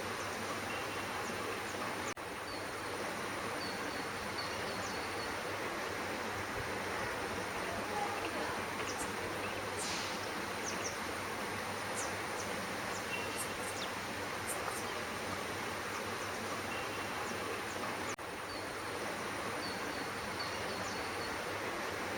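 Steady outdoor background noise, an even hiss or hum with no clear source, with a few faint, high, short chirps in quick series about two seconds in and again near the end.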